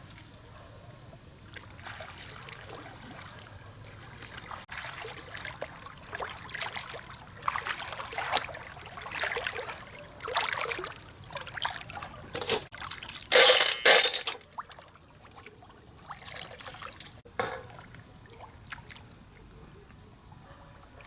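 Water splashing and trickling in irregular bursts, with two loudest splashes close together about two-thirds of the way in.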